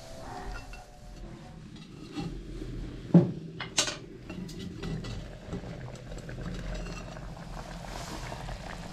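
A knife scraping and tapping around the rim of a sealed clay cooking pot, then the clay lid knocked and clinked sharply twice as it is lifted off with a cloth, a little over three seconds in.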